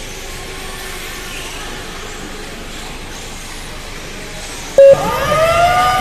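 Steady background noise at an RC car race track. About five seconds in comes a short, loud electronic beep, followed by a pitched whine that rises and then holds.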